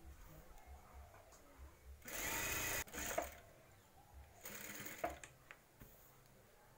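Industrial sewing machine stitching in two short runs, the first about two seconds in and the second near five seconds, each lasting roughly a second. The second run ends with a sharp click.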